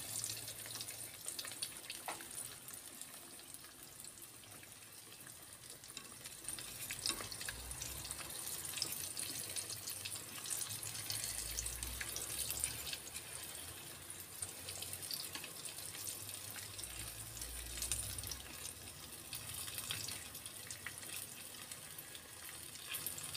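Wonton-wrapped banana rolls frying in shallow oil over low heat: a steady crackling sizzle.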